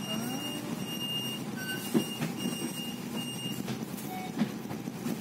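Double-decker bus running in slow city traffic, a steady rumble of engine and street noise, with a high electronic beep sounding in short repeated pulses and a couple of sharp clicks.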